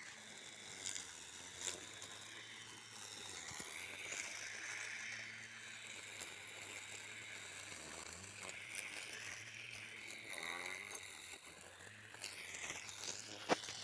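Small motor of a homemade lawn mower whirring as its blade cuts grass on uneven ground, the whine wavering in pitch as the load changes. A sharp click near the end.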